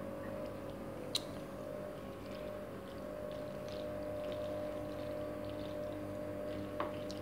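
A wooden spoon stirring macaroni salad in a plastic bowl: faint soft scraping and one sharp click about a second in. Underneath runs a steady hum of several held tones.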